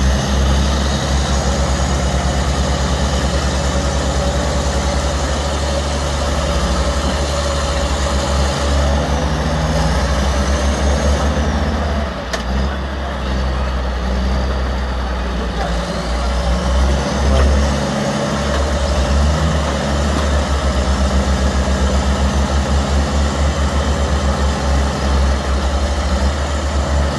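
Heavy vehicle engine running steadily, with a strong, deep low tone.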